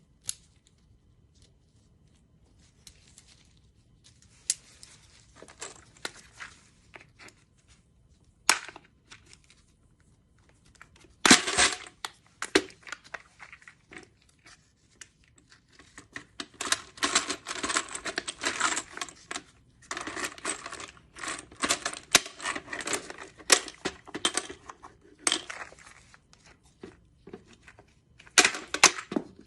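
Hard plastic parts of a Magpul 60-round drum magazine clicking, knocking and rattling as it is handled and worked apart or together. Scattered single clicks, a loud clatter about eleven seconds in, then a long run of dense clicking and rattling, and another clatter near the end.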